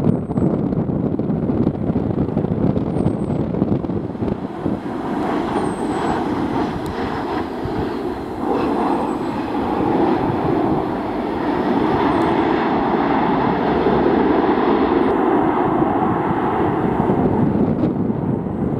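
Boeing 737-800's CFM56 jet engines running through landing, swelling to a broad roar as the airliner passes, touches down and rolls out, with wind buffeting the microphone.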